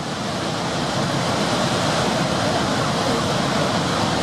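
Niagara's Horseshoe Falls: the steady rushing of a huge volume of water pouring over the crest, swelling slightly in the first second.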